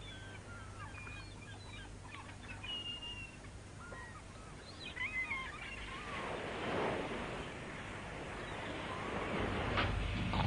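Faint birds chirping in short, wavering calls, then a soft rushing noise that swells from about halfway through.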